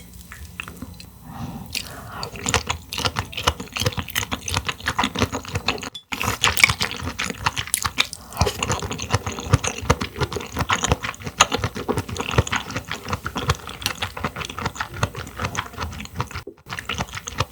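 Close-miked chewing of hangdal clam meat: a dense, irregular run of wet clicks and smacks. It drops out briefly about six seconds in and again near the end.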